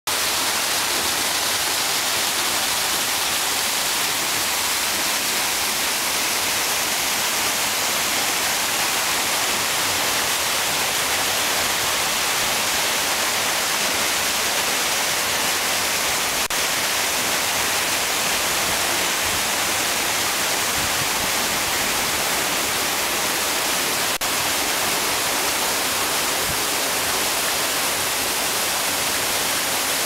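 Waterfall: falling water rushing steadily and evenly, with a bright hiss from the spray.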